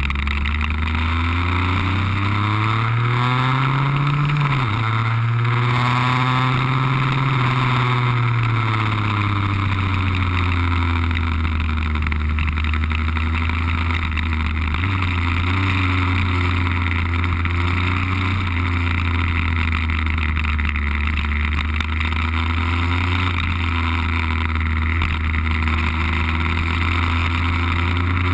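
Lambretta scooter's RB20 two-stroke engine from on board at speed. Its pitch climbs under acceleration, drops sharply about four and a half seconds in at a gear change, then eases off and picks up again through the bends. A steady hiss of wind over the microphone runs underneath.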